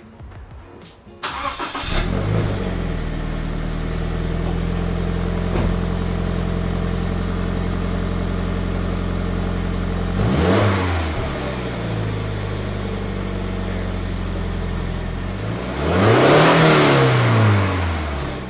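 Subaru BRZ's FA20 flat-four running through its stock exhaust: it cranks briefly and catches about a second in, flares and settles to a steady idle. It is revved twice, a short blip about ten seconds in and a longer rev near the end.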